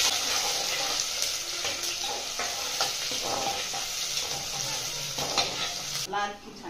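Sliced onions sizzling in hot oil in an aluminium pressure cooker, stirred with a metal ladle that scrapes against the pot. The sizzle cuts off suddenly about six seconds in.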